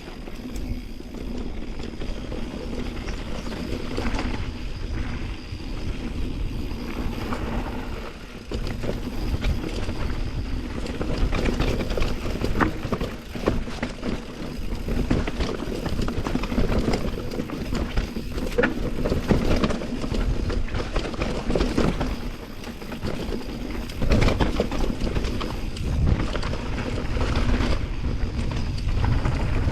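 Mountain bike riding down a bike-park trail: wind rushing over the microphone, with tyres on dirt and the bike rattling and knocking over bumps, louder and busier from about ten seconds in.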